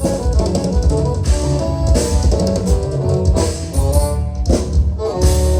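Live band playing an instrumental passage, with drum kit and guitar over held notes.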